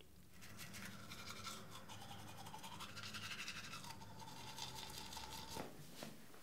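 Teeth being brushed with a manual toothbrush: quick, scratchy scrubbing strokes that stop about five and a half seconds in.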